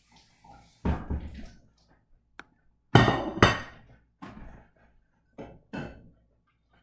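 A series of knocks and thuds, about six in all; the loudest two come close together about three seconds in, with smaller ones before and after.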